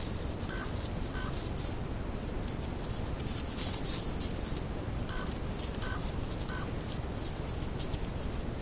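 Steady hiss from a camera trap's microphone. Over it come a few faint short chirps and soft high crackles, the loudest a little before halfway.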